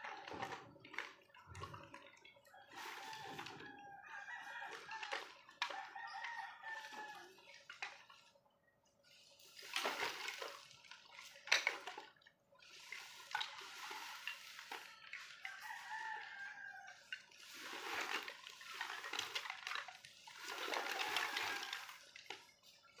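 Roosters crowing several times in the background, mixed with rustling and clattering of plastic sacks and wood scraps being rummaged through by hand. A faint steady hum runs underneath.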